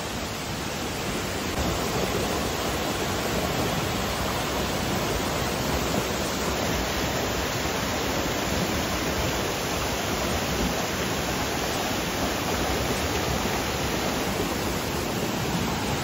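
Waterfall and mountain stream water rushing, a steady even noise.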